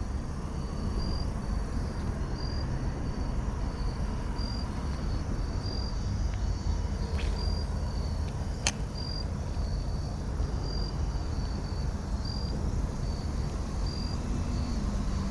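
Insects chirping in an even rhythm, one short high chirp about every second, over a steady low rumble. Two brief sharp clicks sound in the middle.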